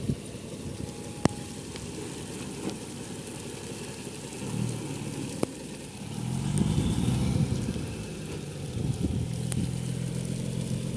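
Heavy cargo truck's diesel engine running, its revs rising about six seconds in and then holding steady. A few sharp clicks cut through it.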